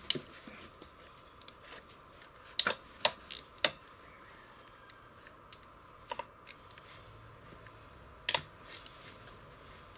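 Scattered sharp metallic clicks and clinks from hand tools and loosened clutch-cover bolts being handled on the ATV engine case: one at the start, three in quick succession a few seconds in, and another near the end.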